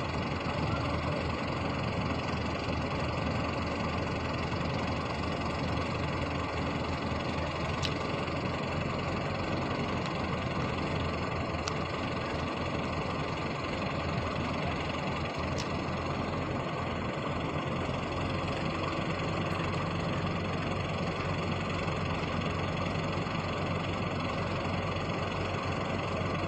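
Heavy diesel engine running steadily at a low, even speed, with a few faint clicks about eight, twelve and sixteen seconds in.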